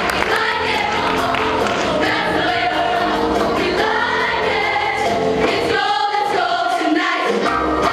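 A show choir singing together, many voices holding and gliding between sustained pitches, with musical accompaniment.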